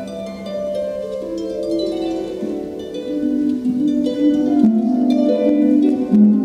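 Solo concert harp playing: plucked notes ringing into one another in flowing figures, growing louder from about halfway through.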